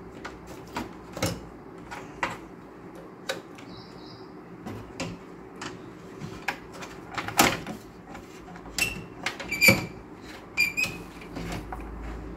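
Scattered clicks and knocks of a motherboard and its metal parts against a steel computer case as the board is fitted back into the chassis. The loudest knocks come about seven and a half and ten seconds in, and a few short high chirps come near the end.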